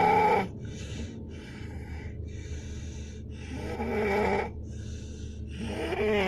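Heavy snoring from a sleeper. Loud pitched, wavering snores come at the start, about four seconds in and near the end, with softer breathy breaths between them.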